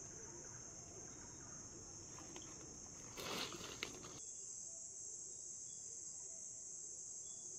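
Steady, high-pitched chorus of insects, a continuous drone. A brief noise cuts in about three seconds in.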